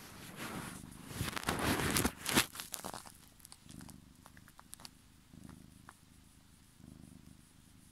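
Domestic cat purring, the low purr swelling and fading in slow breath cycles about every second and a half. In the first few seconds loud rustling, with the phone rubbing against fur and clothing, covers the purr, followed by a few small clicks.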